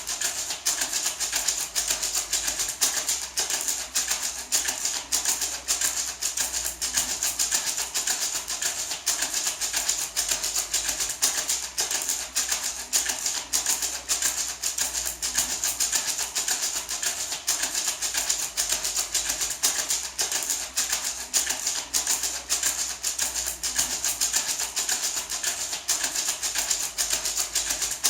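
Gourd maraca shaken in a steady, fast rhythm, its seeds rattling with a dense, even swish of clicks.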